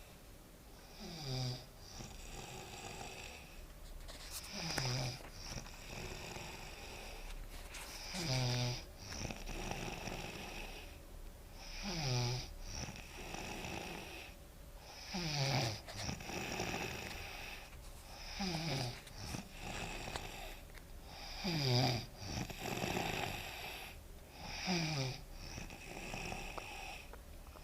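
A sleeping woman snoring steadily, about eight snores one every three to four seconds, each dropping in pitch, with a breathy hiss between them.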